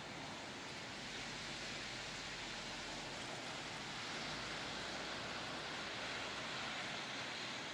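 Steady hiss of heavy, wet snowfall coming down on rooftops and wet pavement, with no separate drops or knocks standing out.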